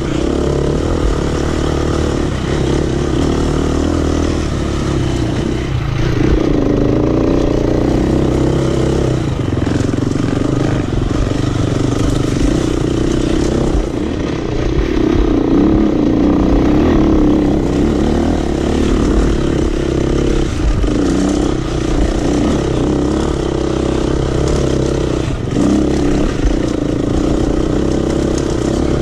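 Dirt bike engine running under load, its pitch rising and falling with the throttle and easing off briefly several times before pulling again.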